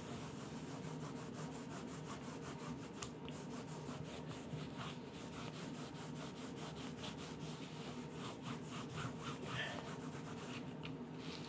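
A small cloth rubbed briskly back and forth over freshly glued paper to press it flat, a dry rubbing in quick repeated strokes, about four a second.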